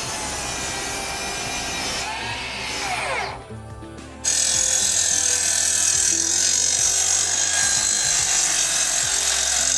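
Sliding 30 cm miter saw's motor running. About three and a half seconds in it drops away briefly, then comes back suddenly and runs loud and steady for the rest.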